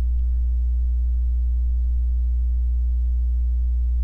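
Steady low hum with a row of fainter, evenly spaced overtones above it, unchanging in pitch and level.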